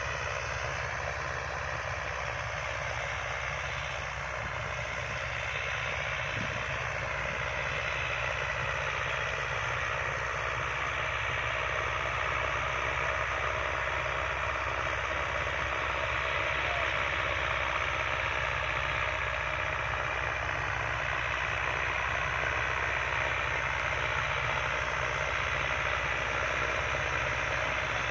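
Tractor diesel engine running steadily under load while pulling a wide disc harrow rig, with a broad hiss over a low hum, slowly getting a little louder. It holds its revs without bogging down.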